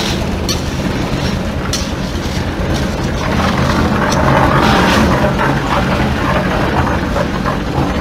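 Concrete mixer running steadily, its engine droning and its rotating drum clattering, with scattered sharp clanks. About four seconds in a rushing swell rises as a pan of aggregate is tipped into the turning drum.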